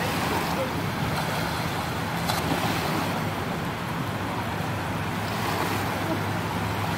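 Small waves washing steadily over a shallow shoreline, with wind buffeting the microphone.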